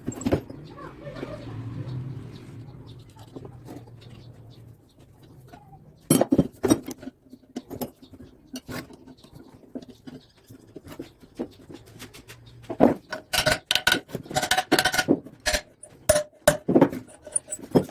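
Metal motor parts clinking and knocking together in a string of sharp clicks and taps, densest in the last few seconds, as an ordinary washing machine motor is put back together with new ball bearings.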